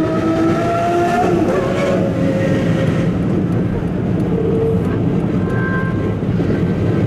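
Car engine and road noise heard from inside a moving car's cabin, steady and loud, with the engine pitch rising in the first second as it accelerates.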